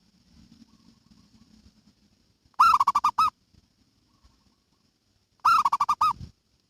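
Zebra dove (perkutut) cooing: two short phrases of rapid, pulsed notes, about three seconds apart.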